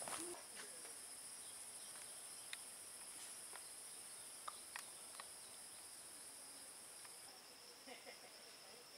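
Faint, steady, high-pitched chorus of insects trilling in the surrounding forest, with a few faint clicks here and there.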